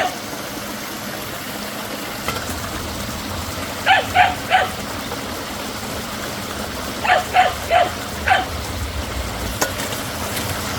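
A dog barking in short runs of three or four quick barks, over the steady rush of a rain-swollen waterfall.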